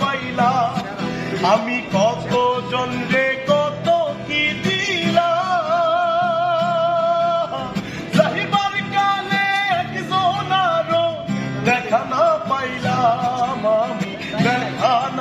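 A Bengali song plays: a voice sings a melody, holding long wavering notes about a third of the way in, over steady instrumental accompaniment.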